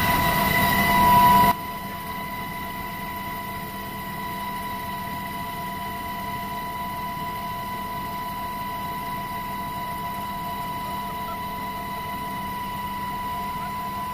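Military helicopter cabin noise heard from inside: a steady high whine over the constant engine and rotor noise. About a second and a half in, it drops abruptly in level and then holds steady.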